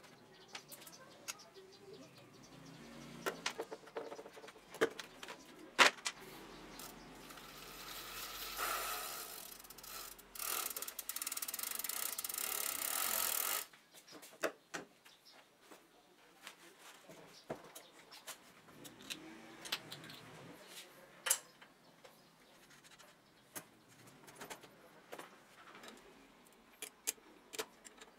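Hand tools clicking, clinking and scraping on the steel parts of a child's bicycle as it is taken apart: a screwdriver on the chain-guard screws and a ring spanner on the brake nuts, with scattered sharp taps. Midway a steady hiss runs for several seconds, then cuts off suddenly.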